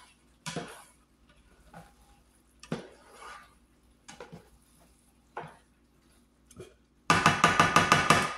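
Spatula stirring and scraping a thick ground-beef taco filling in a pan, in separate short scrapes about once a second. Near the end comes a loud quick run of knocks, about eight a second, as the spatula is knocked against the pan.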